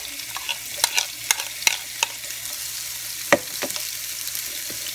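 Sliced onion sizzling in hot oil in a nonstick frying pan, with several sharp clicks of a metal spoon against the plate and pan, the loudest a little past halfway.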